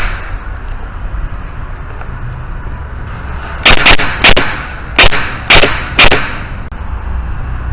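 Airsoft rifle, an Ares M45X electric gun, firing about six single shots in quick succession, some in close pairs, starting about halfway through, over a steady low rumble.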